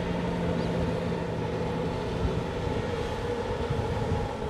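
Kubota M6040 SU tractor's diesel engine running steadily under load as it works a flooded rice paddy, heard from a distance with an uneven low rumble underneath.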